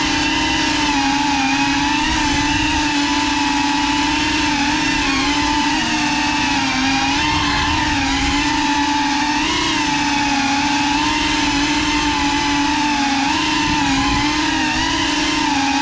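Small FPV drone's electric motors and propellers whining steadily, the pitch wavering up and down slightly as the throttle changes.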